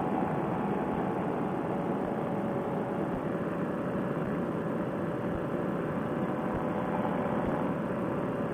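Paramotor trike's engine and propeller running steadily in flight, mixed with wind noise, sounding muffled with no high end.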